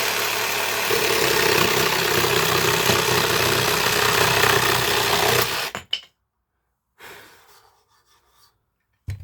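Dewinner cordless jigsaw cutting through hardwood flooring on pendulum-action setting 3, a fast, aggressive cut that tears out the wood. The saw runs for about five and a half seconds and then stops, followed by a couple of sharp knocks near the end.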